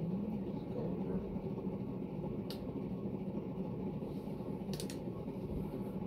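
Berni Panama-copy ceiling fan running steadily with a constant rattling rumble from its noisy bearings, while the motor itself is near silent. A couple of sharp clicks come about two and a half and five seconds in.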